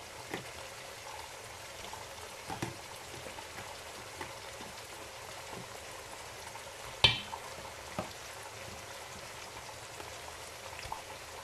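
Onions, peppers and aubergine pieces frying gently in a pot: a steady faint sizzle with scattered small crackles, and one sharper click about seven seconds in.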